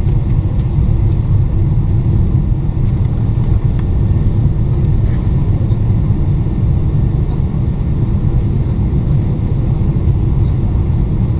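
Steady low rumble of a Boeing 777-300ER heard from inside the cabin during landing: engine and airflow noise with no distinct touchdown thump.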